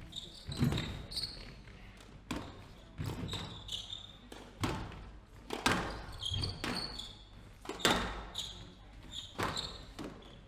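Squash rally: sharp cracks of the ball off rackets and walls about once a second, ringing briefly in the hall, with short high squeaks of shoes on the wooden court floor between the shots.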